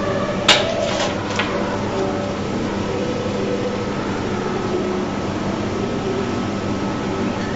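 Steady background hum and hiss, with three short clicks between about half a second and a second and a half in.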